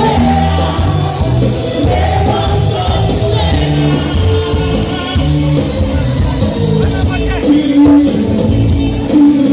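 Loud carnival music with singing and a few shouts, a steady bass line under held notes.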